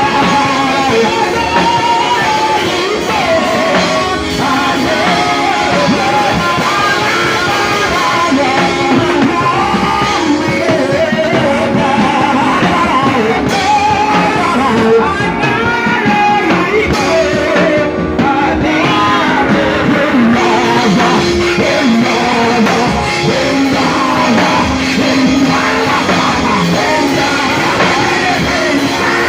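Church worship music: voices singing over a band, loud and continuous.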